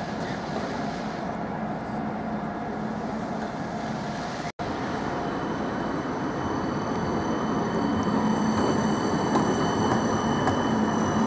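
Midland Metro CAF Urbos 3 tram: a steady electric hum, a momentary gap, then the tram's running sound growing louder as it comes closer, with a high steady whine on top.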